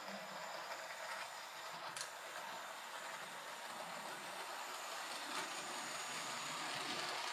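Hornby OO-gauge GWR 0-4-0 model locomotive running round the layout with its mail coaches: a faint, steady running noise from the small electric motor and the wheels on the rails. It grows a little louder towards the end, with a light click about two seconds in.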